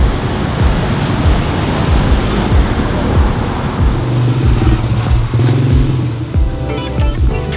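Background music with a steady, evenly spaced low beat and a held bass note in the middle.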